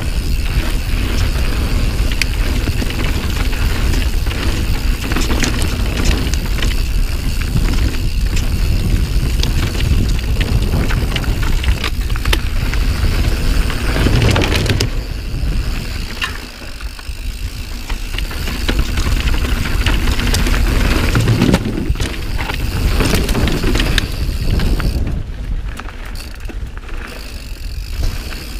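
Santa Cruz Nomad carbon mountain bike riding fast down a dirt singletrack: a constant low wind rumble on the microphone over tyre noise, with frequent rattles and clicks from the bike over bumps. It rolls across a wooden bridge about halfway through, and the noise drops briefly a little after that.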